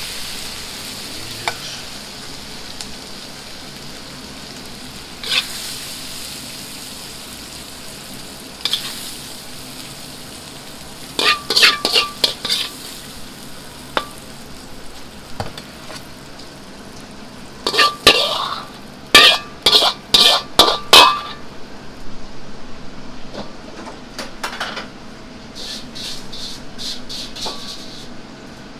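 A metal ladle scraping and knocking against a wok as a stir-fry is pushed out onto a plate, with a cluster of sharp metallic clanks about eleven seconds in and a louder run of them near twenty seconds in. A low steady sizzling hiss from the hot wok runs underneath.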